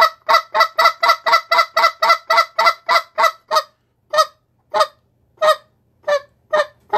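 Reed goose call blown by mouth in a run of short, clipped spit notes (spit clucks). They come about four a second for the first three and a half seconds, then slow to roughly one every half second or so.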